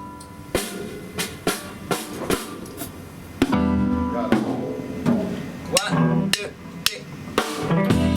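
Live band at a sound check: a drum kit playing separate snare and bass-drum hits, with the full band's sustained chords coming back in near the end.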